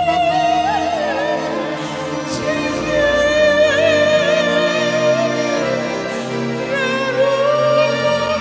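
A woman singing a slow song with strong vibrato, holding long notes, to accordion and electronic keyboard accompaniment.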